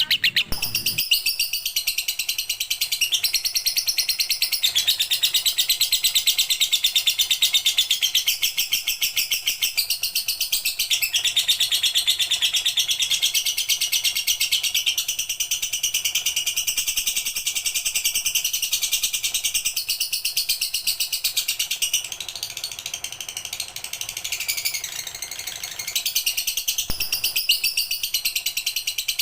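Lovebird chattering in a rapid, continuous stream of shrill, high chirps. It eases off for a few seconds past the twenty-second mark, then picks up again.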